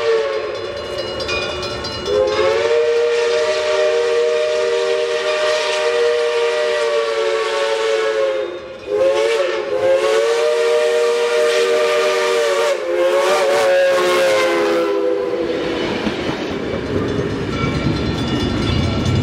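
Reading & Northern 425's replica CNJ three-chime steam whistle blowing a chord of several notes: the end of one blast, then three long blasts with short breaks between them. After the last blast fades, the steam locomotive's rumble and running noise grow louder as it draws near.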